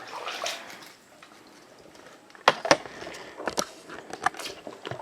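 A quiet stretch, then a scatter of sharp clicks and knocks from about two and a half seconds in.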